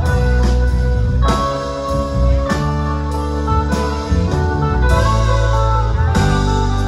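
Live rock band playing, electric guitar to the fore over drums and a heavy low end, as heard from the audience.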